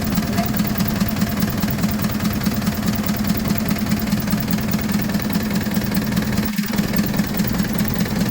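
Isuzu 4BC2 four-cylinder diesel engine running steadily at idle after its injection pump has been cleaned and recalibrated to cure hard starting, with a brief dropout about six and a half seconds in.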